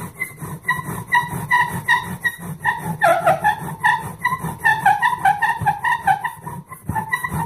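Tamarack bow drill at work: the spindle squeaks in the hearth board at each stroke of the bow, about two to three squeaks a second over a low rubbing, with a longer falling squeal about three seconds in. The spindle is drilling hot enough to smoke the hearth, the stage before an ember forms.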